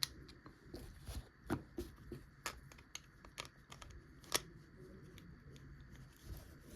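Small plastic Beyblade Burst parts clicking and knocking as they are handled and turned to fit together: a scatter of light irregular clicks, with one sharper click about four seconds in.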